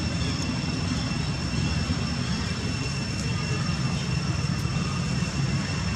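Steady low rumble of outdoor background noise, with two thin, steady high-pitched tones running above it.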